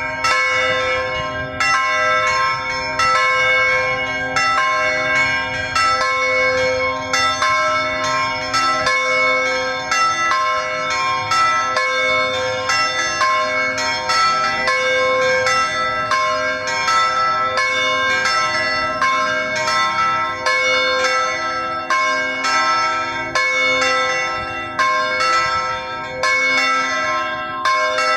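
Church bells ringing in a quick, continuous sequence of strikes, each note ringing on and overlapping the next.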